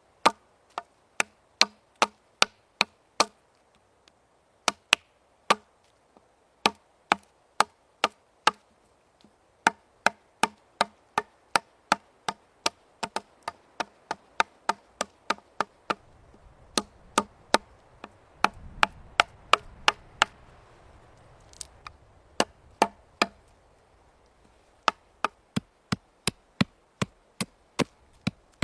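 Rapid, evenly spaced chopping knocks, about two to three a second, in runs with short pauses; a faint low rumble comes in around the middle.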